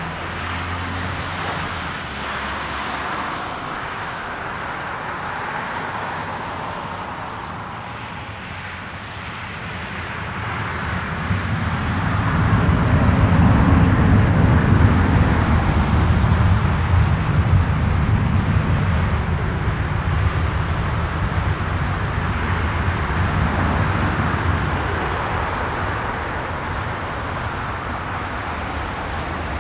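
Airbus A321 freighter's twin jet engines at takeoff thrust on the takeoff roll. A deep rumble swells about ten seconds in, is loudest a few seconds later, then slowly fades as the jet rolls away down the runway.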